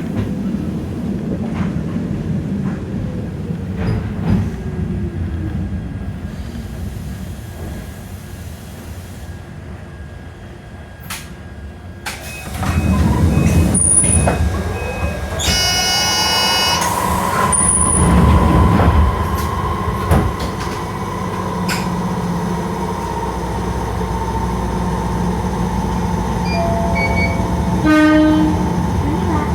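Electric train's traction motors whining down in pitch as it brakes and comes to a stand. After a quieter pause, a short buzzer sounds and the motor whine rises and then holds steady as the train pulls away and gathers speed.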